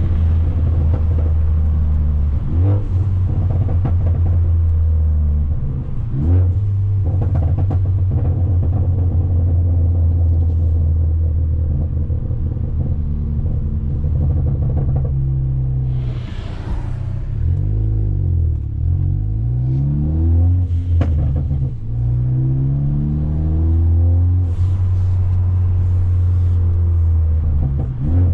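Turbocharged Ford Focus ST with a catless downpipe and straight-piped Flowmaster exhaust, giving a loud, deep drone while driving, its note dropping and climbing with gear changes and throttle, several pitch sweeps in the second half. A few sharp pops break through, and there is a brief hiss about sixteen seconds in.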